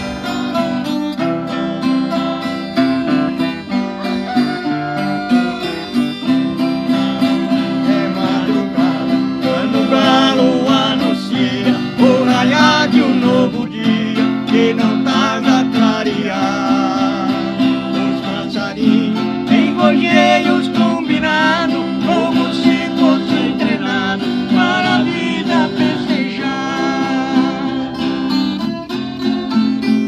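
Acoustic guitars strummed and picked, with a man singing a Portuguese-language country song over them, the voice coming in about eight seconds in.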